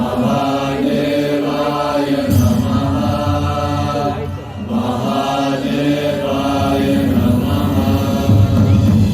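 Chanting voices, a mantra-like chant sung over a musical soundtrack with a low sustained bass layer.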